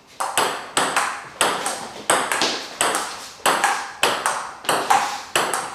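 Table tennis rally: the ball clicking sharply off the paddles and the table in a steady rhythm of close pairs, about one pair every two-thirds of a second.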